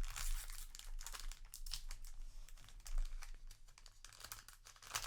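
Crinkling of a trading-card booster pack wrapper and rustling of cards as they are handled, in irregular crackles with a louder crackle about three seconds in, over a steady low hum.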